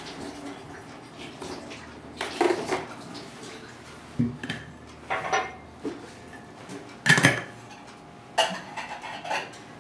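Kitchen clatter as a tin, a glass and a tub with a knife are picked up and set down on a counter: a string of separate knocks and clinks, the loudest about seven seconds in.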